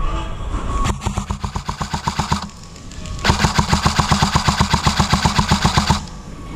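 Airsoft electric gun firing full-auto bursts: a burst of about a second and a half starting about a second in, then a longer burst of nearly three seconds. Each burst is a rapid, even string of shots at about ten a second.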